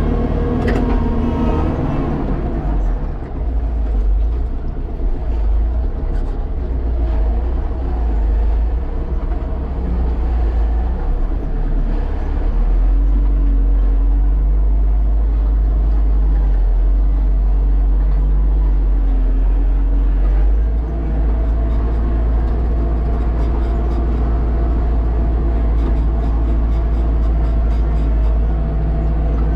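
Kubota tractor's diesel engine running steadily, heard from inside the cab as a deep drone. Its note shifts about twelve seconds in and again around twenty seconds in, as the engine speed or load changes.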